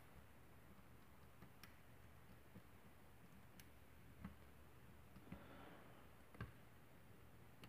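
Faint, scattered clicks of a hook pick working the pins inside a lock cylinder held under a tension wrench, about five of them a second or so apart, with a soft scrape just after the middle, over near silence.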